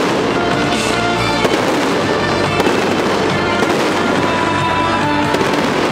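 Fireworks going off in a dense run of crackles, with a few sharper pops, over music.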